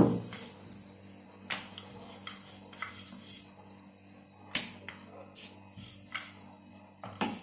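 Wooden rolling pin rolling out wheat-flour dough on a stone rolling board, with sharp clicks and knocks every second or so as the pin strikes the board.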